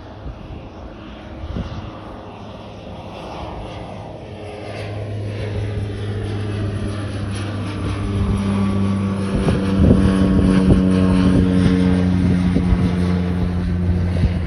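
Cessna Grand Caravan's single PT6A turboprop engine and propeller at takeoff power, a steady drone that grows steadily louder through the first ten seconds and then holds.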